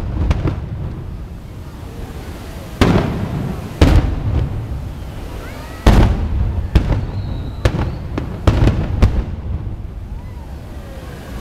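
Aerial fireworks shells bursting: about ten sharp booms at irregular intervals, each trailing off in a low rumble, with several coming in quick succession in the second half.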